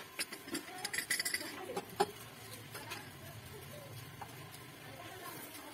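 Metal burner cap and crown of a Modena built-in gas hob being lifted off and handled: a few light clinks and knocks in the first two seconds, the sharpest about two seconds in.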